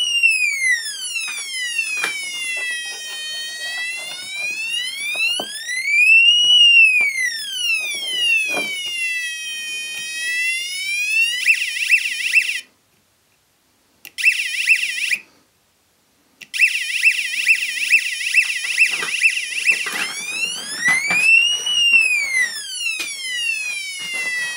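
Small buzzer of a PicoPolice electronic siren kit playing a police siren effect: a buzzy tone wailing slowly up and down, which switches about halfway to a fast warble that cuts out twice briefly, then returns to the slow wail near the end.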